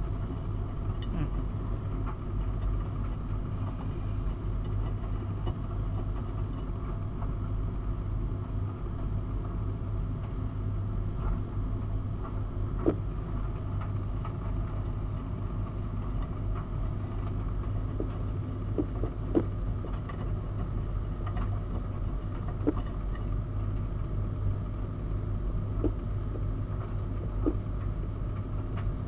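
Miele W 5873 WPS front-loading washing machine in its wash phase, the drum turning a load of dark cotton laundry through the water: a steady low hum with swishing, broken by a few sharp clicks.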